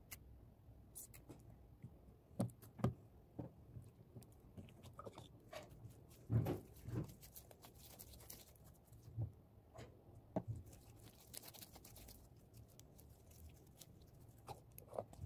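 Hands squeezing and stretching slime, making irregular soft clicks and small pops, a few of them louder.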